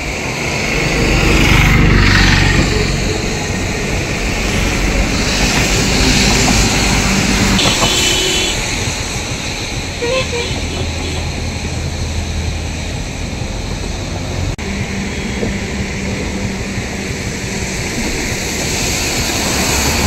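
Loud, steady roar of floodwater rushing through the barrage gates, with a faint low hum underneath at times.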